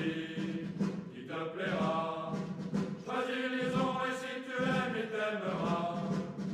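Background music of chanted choral singing, the voices holding long notes.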